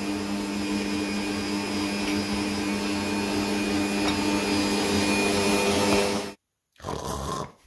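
Bosch stand mixer's motor running steadily with a steady hum, its whisk beating cake batter in a plastic bowl; the sound cuts off abruptly about six seconds in, followed by a brief fainter noise.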